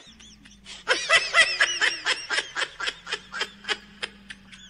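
A person laughing: a quick run of short 'ha' bursts from about a second in, fading away over about three seconds.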